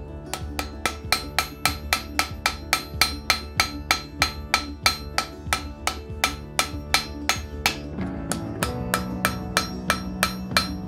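Hand hammer striking white-hot iron on a steel anvil in a quick, steady run of blows, about four a second and slowing slightly near the end: forge-welding the eye of a strap hinge. Background music plays underneath.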